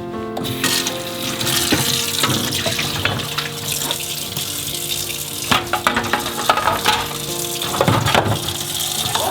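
Water running steadily from a tap into a sink, with a few light knocks of things being handled, over soft background music.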